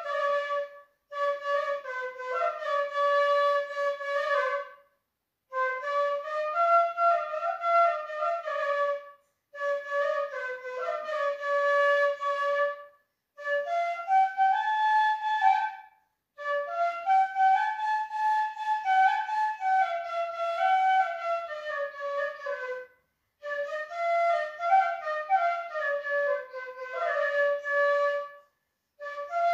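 Background music: a solo flute playing a slow melody in phrases of a few seconds, each broken off by a short pause for breath.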